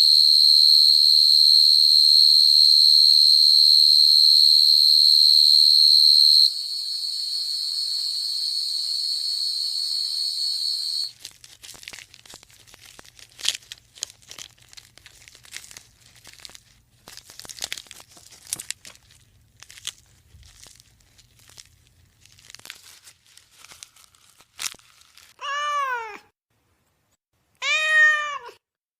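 A steady, high whistle tone for about eleven seconds, loud at first and dropping to a quieter level partway through. Then scattered crackling and clicks, and near the end two meows from a domestic cat.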